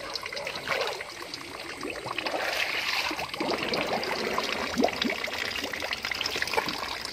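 Shallow muddy stream water trickling and sloshing, with many small rustles and clicks as the grass and weeds at the water's edge are pushed aside.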